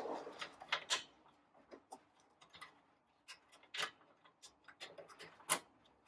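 Light clicks and taps of hand tools and metal parts being handled at uneven intervals, a dozen or so, the sharpest about five and a half seconds in.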